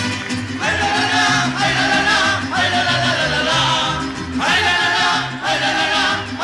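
Mariachi band playing an instrumental passage: violins and trumpets carry the melody in phrases that each open with an upward slide, over guitars and a stepping bass line.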